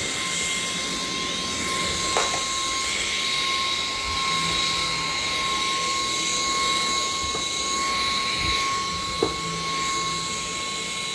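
TMA 400 W, 30 kPa stick vacuum cleaner running steadily: a high, even motor whine over rushing air, with a couple of brief clicks, about two seconds in and again near the end.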